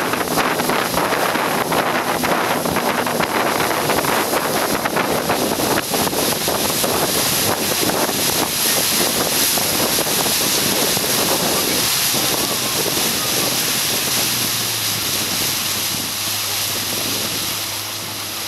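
Small ferry boat under way: wind buffeting the microphone over the rush of water along the hull, with the boat's engine running underneath. The noise eases a little near the end, leaving a steadier low engine hum.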